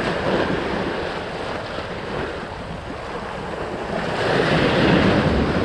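Choppy sea waves breaking and washing against concrete breakwater blocks, with wind buffeting the microphone. A bigger wave surges louder near the end.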